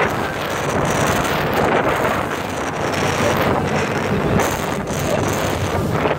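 Wind buffeting the microphone aboard a fast-moving speedboat, over the rush of water from the wake and a steady low engine hum.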